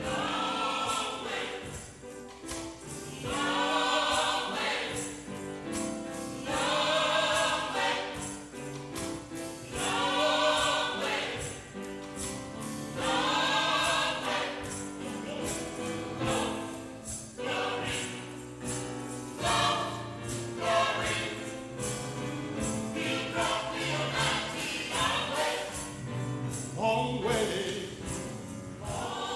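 Church choir singing a gospel song with instrumental accompaniment. Sung phrases swell and fade every three seconds or so over a steady low backing.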